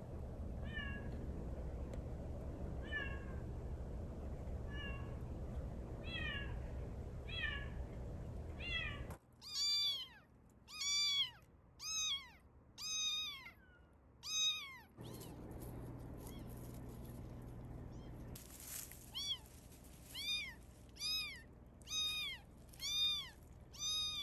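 A kitten about a month old meowing over and over, about one cry a second, each cry rising and then falling in pitch. The first few cries are faint over a low background rumble; the rest are loud and high.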